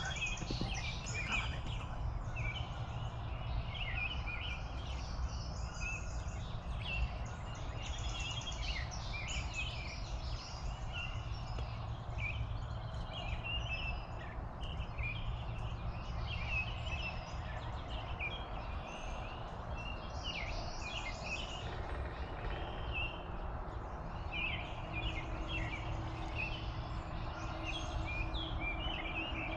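Dawn chorus of many songbirds chirping and singing steadily, over a low, even rumble.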